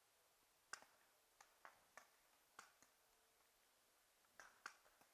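Faint, irregular sharp pops of pump-action paintball markers firing, about eight shots scattered over the few seconds, some in quick pairs.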